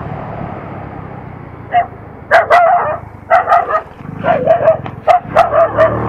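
Dogs barking repeatedly, about a dozen sharp barks in quick clusters starting about two seconds in, over the steady running of a motorcycle engine.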